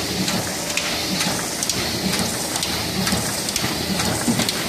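Sheet-fed one-colour offset printing press running while printing: a steady mechanical clatter with repeated sharp ticks.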